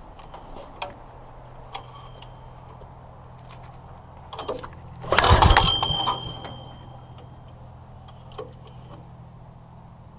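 Handling of metal parts: scattered light clicks and knocks, and one loud metallic clank about five seconds in that rings on briefly, over a steady low hum.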